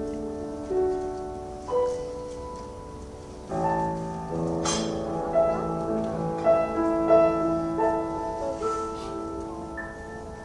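Grand piano played four-hands, a slow passage of held chords. A fuller chord comes in about three and a half seconds in, and the notes ring out and fade toward the end.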